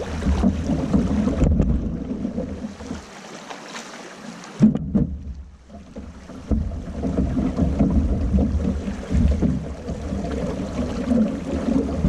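Shallow swift river water rushing over rocks and past the side of a canoe as it is pulled upstream on a rope, with wind buffeting the microphone; the low wind rumble drops out briefly about three seconds in and again around five seconds.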